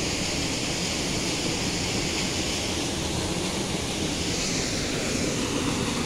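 Forest stream rushing over rocks in small rapids: a steady, even wash of water noise.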